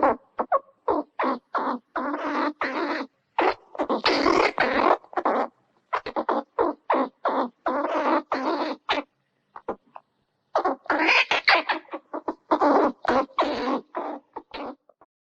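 Squirrel giving a long series of short, harsh calls, two to three a second, with a pause of about a second partway through.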